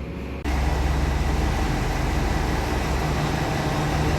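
Train running with a steady low rumble and rushing noise. The sound jumps abruptly louder about half a second in.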